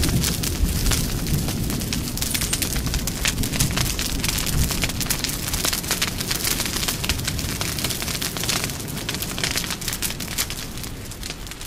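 Intro sound effect of dense crackling over a deep rumble, easing off slightly near the end.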